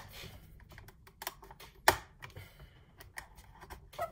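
Irregular sharp plastic clicks and taps, with a brief scrape at the start, as a plastic card is worked into the seam of a DJI Mavic Air drone's plastic body to pry off its cover. The loudest click comes about two seconds in.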